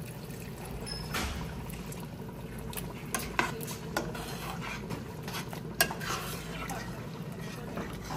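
Water poured into a stainless steel pot of stewing smoked fish, tomato and pumpkin, then a metal spoon stirring and scraping in the pot, with sharp clinks against its side, the loudest near the end.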